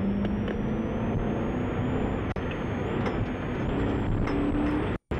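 Patrol car's engine running under load as the car reverses, its pitch climbing steadily over several seconds, with a faint high whine rising alongside. The audio cuts out for a moment near the end.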